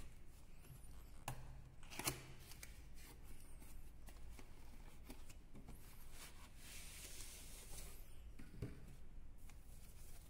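Faint rustling and scraping of a cardboard box being handled and its inner sleeve slid out, with a couple of light knocks about a second and two seconds in, and a longer sliding scrape around seven seconds in.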